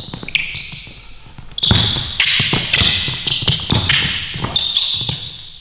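Basketball bouncing and hitting the hardwood gym floor several times, with short high squeaks of basketball shoes on the court during play.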